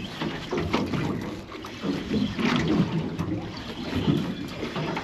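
Sounds of a small boat drifting on the sea: water against the hull and wind on the microphone, with scattered light knocks.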